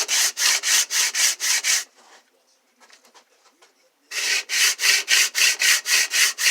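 A homemade lock pick being rubbed back and forth by hand on a sanding board, about four scraping strokes a second. The sanding stops for about two seconds in the middle, then starts again.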